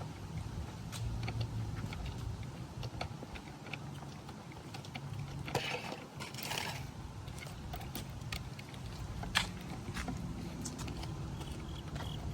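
Scattered clicks and handling noise from hands and tools working on the vehicle, over a steady low hum. There is a louder rustle about six seconds in and a single sharp click about nine seconds in.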